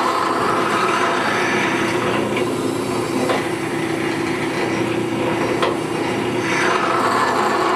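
Drill press running steadily with a constant hum as a straight-flute reamer is fed down through an aluminum big-block Chevy cylinder head, cutting the second pass of a bore for an exhaust-port tube.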